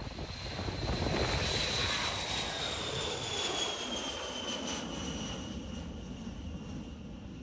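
B-52H Stratofortress's eight TF33 turbofan jet engines at takeoff power as the bomber climbs out just after liftoff. A dense jet noise carries a high whine that slowly falls in pitch as the aircraft passes, and the whole sound gradually fades.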